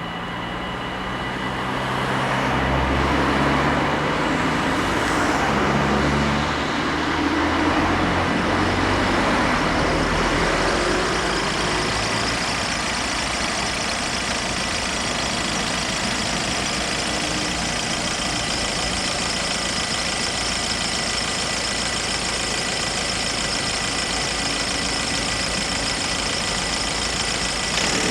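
Dutch level-crossing warning bells ringing steadily, heard as a held high ringing. Over the first seconds a broad rumble and rush of noise builds up and then holds steady under the bells.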